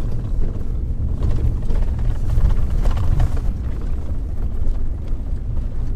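Strong wind buffeting the microphone: a heavy, uneven low rumble that swells and eases with the gusts.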